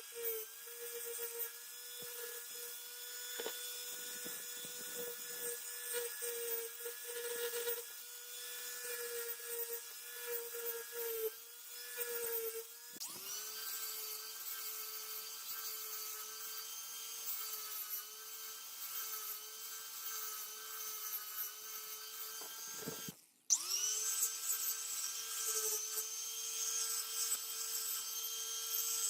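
Small high-speed handheld rotary tool running with a steady whine and rubbing against the work. It dips in speed about thirteen seconds in, cuts out for a moment near twenty-three seconds and spins back up.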